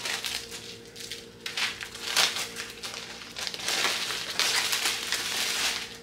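A sheet of paper crinkling and rustling as it is lifted and peeled back from a layer of bacon slices, in short bursts and then a longer spell near the end, over a faint steady hum.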